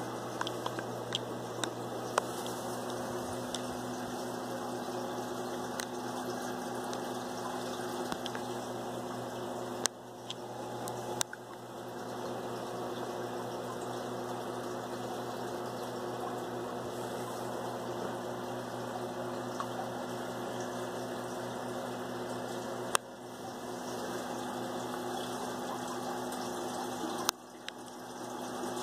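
Saltwater aquarium's water pump running with a steady hum and a wash of moving water. A few sharp clicks break in, four times.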